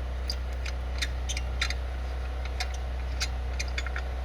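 Ratchet with a 14 mm socket clicking in short, irregular ticks while backing out a lawnmower blade bolt that is turning freely. A steady low hum runs underneath.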